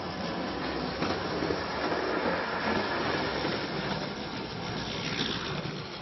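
Hornby Type 101 clockwork tinplate tank locomotive running on tinplate track: a steady rattling clatter of its spring motor and wheels on the rails, a little louder from about a second in and easing off near the end.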